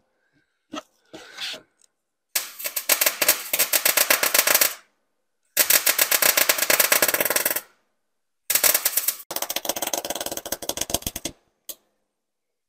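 Electric arc welder crackling in three runs of two to three seconds each as beads are laid joining steel struts to the tractor frame, with a brief blip of arc near the end.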